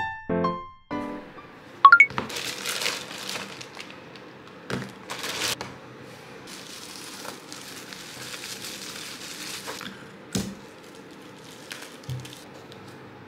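A few piano notes at the start, then crinkling and rustling of handled packaging with occasional sharp taps and knocks, over faint background music.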